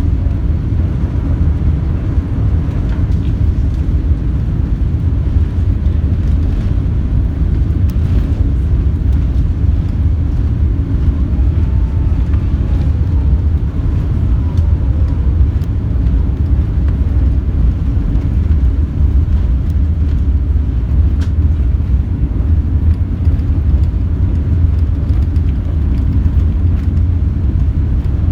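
Steady, loud, low rumble of a British Airways Airbus A380's engines and airflow, heard from inside the cabin over the wing. A few faint, short gliding tones sound about halfway through.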